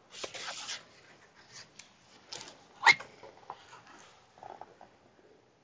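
A hardcover book being handled and turned around, with paper rustling in the first second and scattered light clicks of cover and pages. A short, sharp sound about three seconds in is the loudest moment.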